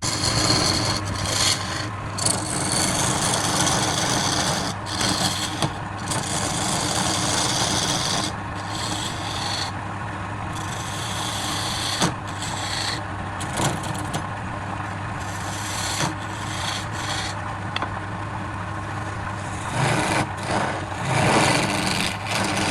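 Wood lathe running, a steady motor hum under the rough scraping and shaving of a turning tool cutting the spinning wood; the cutting noise swells and eases as the tool moves.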